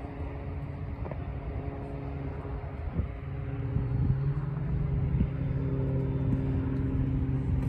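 Airplane flying overhead, its engine drone a steady low hum that grows louder as the plane comes closer, with some wind on the microphone.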